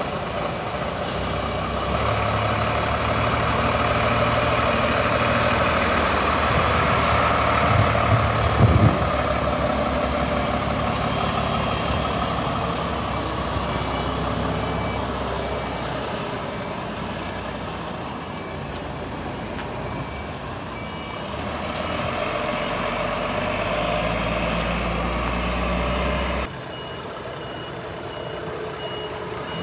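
Scania P92M fire truck's six-cylinder diesel engine running as the truck pulls around and drives off, swelling and fading as it moves, with a louder moment about nine seconds in. An electronic beep repeats at an even pace through the middle stretch and again near the end.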